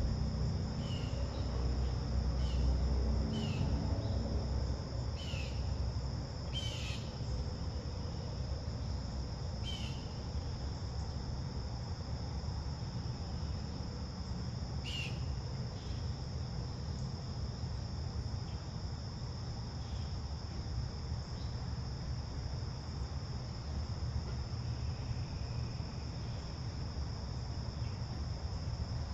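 Steady high-pitched chorus of insects, likely crickets, running unbroken. Several short bird chirps come and go, mostly in the first half. A low background rumble sits underneath.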